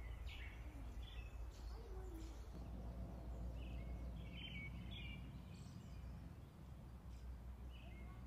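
Outdoor ambience: a few short, faint bird chirps scattered over a steady low background rumble.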